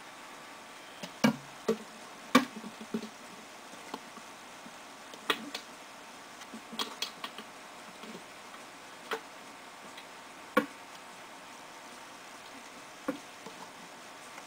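Light handling noise: about a dozen short clicks and knocks at irregular intervals over a faint steady hiss, from the enclosure and tools being handled.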